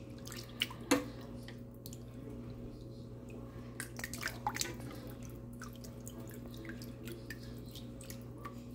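Light splashing and dripping as a hand lifts and swishes freshly cooked rice noodles in a pot of cold water, with the sharpest splash about a second in. A steady low hum runs underneath.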